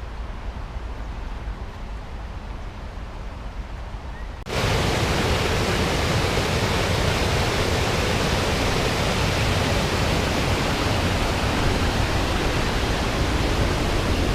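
Low outdoor rumble, then about four and a half seconds in a sudden switch to a loud, steady rushing noise.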